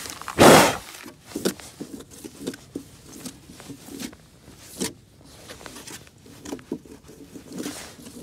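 Tape being ripped off a hexagon mosaic tile panel in one loud, short tear about half a second in, followed by scattered light clicks, taps and rustles of the panel and tape being handled.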